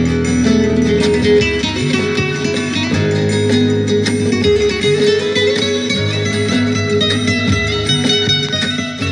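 Flamenco-style acoustic guitar music playing steadily, with sustained low notes beneath the plucked melody.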